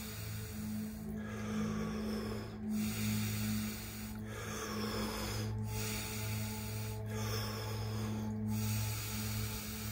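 Deep, rapid Wim Hof power breathing through the mouth: a full inhale and a let-go exhale, repeating about once every three seconds with a short pause between each half.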